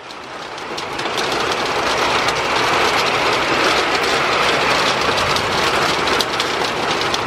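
Heavy storm rain arriving in a downpour, growing louder over the first couple of seconds and then falling steadily, with a dense spray of sharp hits against surfaces.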